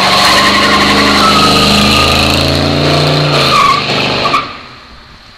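1963 Chevy Impala Super Sport accelerating hard with its engine revving loudly and its tyres squealing in a burnout. The sound drops away sharply about four seconds in as the car turns off.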